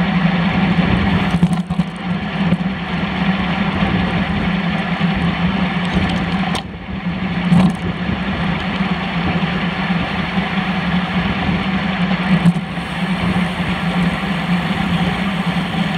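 Wind buffeting a handlebar-mounted camera's microphone and road-bike tyres running on asphalt, a steady noise with a low hum under it. A few brief knocks from the bike, the loudest about seven and a half seconds in.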